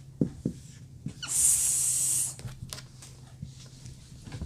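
A voice making a long hissing "sss", the sound of the letter S, held for about a second, with a few faint clicks before it.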